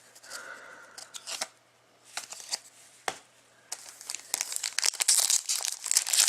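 Wrapper of a 2014-15 Masterpieces hockey card pack being torn open and crinkled. Scattered light rustles and clicks at first, then dense, louder crinkling from about four seconds in.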